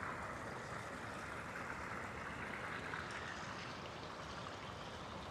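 Steady rush of running water from a small garden waterfall, easing a little after about three seconds.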